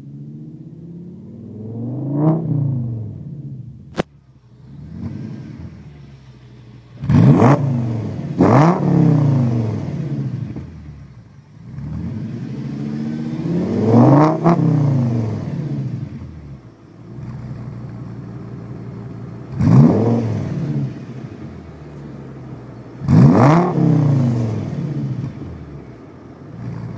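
Audi S6's 5.2-litre V10 through a Milltek non-resonated exhaust, idling and blipped six times, each rev climbing sharply and dropping back to idle, with two quick revs in a row about a quarter of the way in. A sharp click comes about four seconds in.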